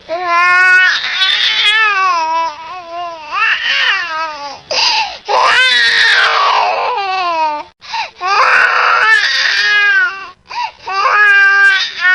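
Infant crying hard: long, loud, wavering wails, about four of them, each broken off by a short gasp for breath.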